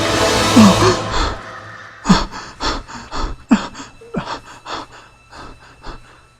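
A man's voice gasping and panting for breath in a run of short, sharp gasps, about two a second, fading toward the end. A loud, dense sound dies away in the first second or so.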